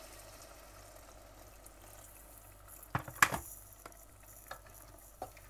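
Hot water poured from a kettle into a pot of simmering curry, the hiss and sizzle fading over the first couple of seconds. A few sharp knocks about three seconds in are the loudest sounds, followed by faint small ticks.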